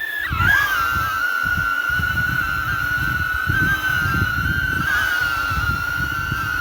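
Quadcopter drone's propellers whining steadily, the pitch dipping and recovering briefly about half a second in, with a low rumble underneath.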